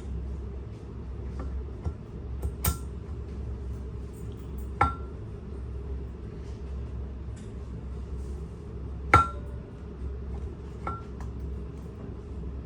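Metal tools and parts clinking and tapping during pump and motor assembly: a few sharp clinks with a short metallic ring, the loudest about five and nine seconds in, over a steady low hum.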